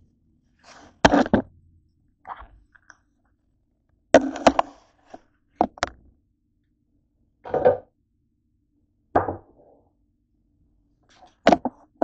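Irregular clunks and knocks from handling a small Crockpot slow cooker on a countertop, about eight separate hits a second or two apart.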